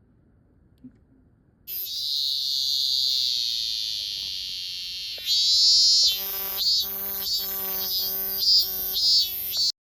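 Cicada calling: a loud, high, continuous buzz starts about two seconds in and slowly sinks in pitch, then changes about five seconds in to a rhythmic run of about seven pulsing, more tonal phrases, which cuts off abruptly near the end.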